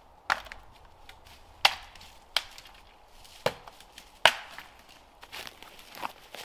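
Dry dead branches snapping as they are broken by hand. There are five sharp cracks spread about a second apart, then a few fainter snaps near the end.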